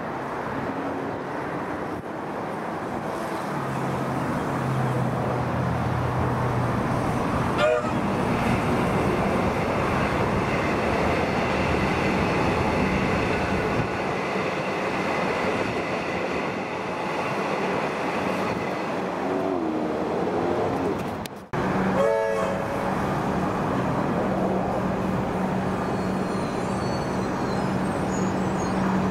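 Melbourne Metro electric suburban train running past: a steady rumble of steel wheels on rail with a low motor hum, building up over the first few seconds.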